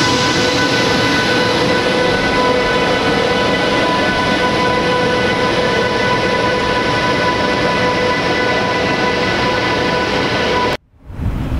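Deutsche Bahn Class 101 electric locomotive and its train running past close by and pulling away: a steady rumble of wheels on rail with several steady whining tones over it. Near the end the sound cuts off suddenly and is followed by wind noise on the microphone.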